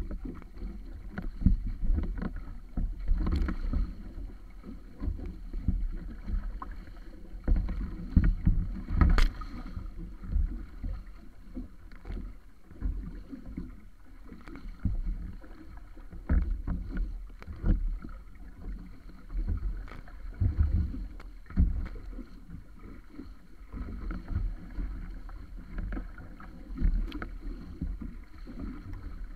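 Water rushing and slapping against the hull of a wooden wa'apa outrigger canoe sailing through choppy sea, an uneven low rumble with wind on the microphone. A few sharp slaps of waves against the hull, the loudest about nine seconds in.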